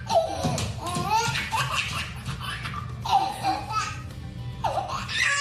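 A toddler laughing hard in repeated belly-laugh bursts, with a woman laughing along, over background music.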